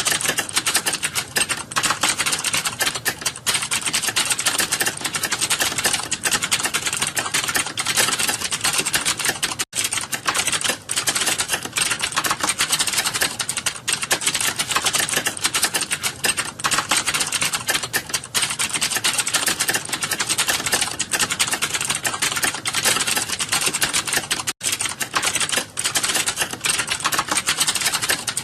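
Fast continuous typing on a computer keyboard during a timed typing test: a rapid, dense stream of keystroke clicks, broken by two very brief pauses, about a third of the way in and again near the end.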